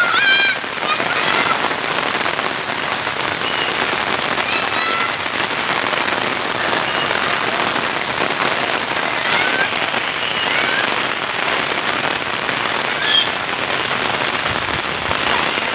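Heavy rain falling steadily, a dense even hiss of drops on the ground, with short high-pitched cries of children calling out now and then over it.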